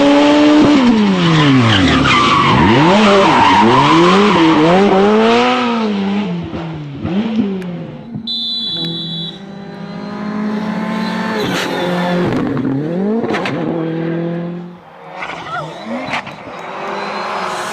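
Rally1 car engine revving hard, its pitch climbing and dropping again and again through gear changes and lifts.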